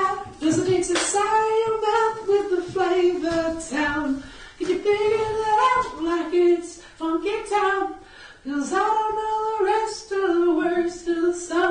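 A person singing unaccompanied in a high voice, held notes in short phrases of a second or two with brief breaks between them.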